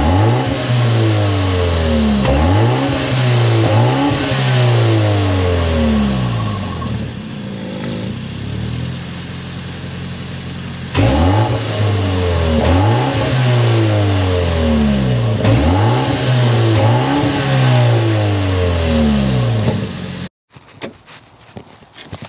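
The 2024 BMW X2 M35i's 2.0-litre twin-turbo four-cylinder, heard at its quad exhaust tips while parked, revved in repeated throttle blips that each rise in pitch and fall back. There are two runs of revving with a steady idle between them, and the later run is in non-sport mode. The engine sound cuts off a little before the end.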